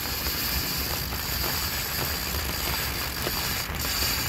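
A fishing reel working steadily under the load of a hooked sturgeon, a continuous mechanical ratcheting sound with no separate clicks, over a low rumble.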